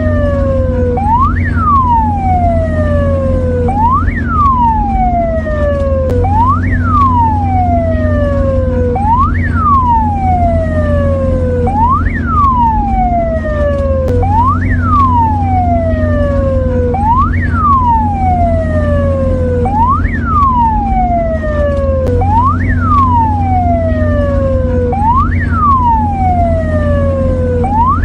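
Mexican ambulance siren sounding a repeating wail, about every two and a half seconds. Each cycle is a quick rise in pitch followed by a slower fall, over a steady low hum.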